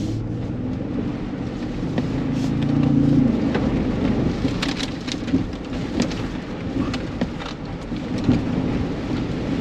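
Ford Bronco First Edition's 2.7-litre twin-turbo V6 revving as the SUV ploughs through a muddy water hole, the engine pitch climbing to a peak about three seconds in. Mud and water then splash and drum against the body and underside in a run of sharp slaps and knocks.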